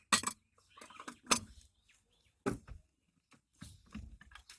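Four sharp knocks about a second apart, from a wheel brace working the lug nuts while the wheel is tightened.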